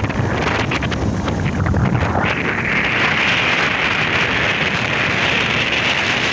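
Wind buffeting the microphone of a motorcycle riding along a road, over a steady low rumble from the bike and its tyres. About two seconds in, a steady hiss joins.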